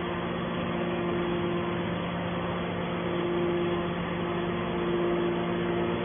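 Hydraulic scrap metal baler's power unit running: a steady machine hum with a constant low tone and a higher pump whine that swells and fades every second or two.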